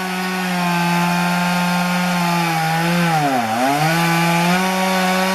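Chainsaw running at high revs, cutting into a palm tree trunk. Its pitch sags briefly and recovers about three and a half seconds in as the saw bogs in the wood.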